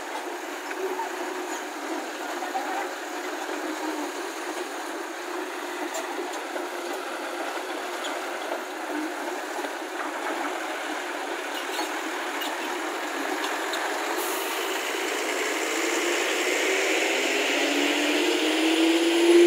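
Loaded lorry's diesel engine pulling away under load after being freed from the mud. The sound grows gradually louder, and near the end the engine note rises as the truck speeds up.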